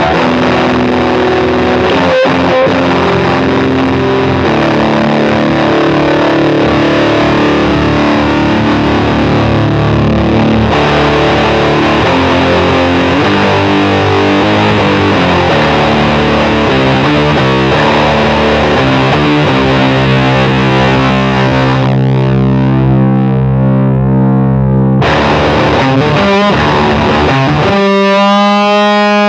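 Electric guitar (a Fender Jazzmaster) played through an EarthQuaker Devices Tone Reaper silicon-germanium fuzz pedal, giving fuzzy, distorted chords and riffs. Near the end a single chord is left to ring out and sustain.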